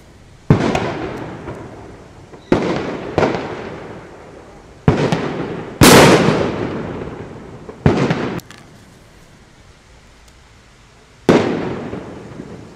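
Trueno Champion No. 3 firecrackers going off: seven sharp bangs at uneven intervals, the loudest a little before the middle, each followed by a long echo dying away.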